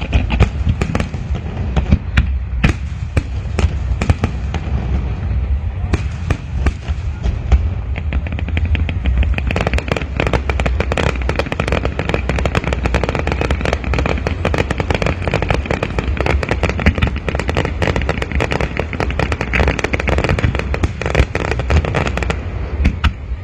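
Fireworks display: booming bursts over a crackle of many small sharp pops, which grows much denser from about nine seconds in.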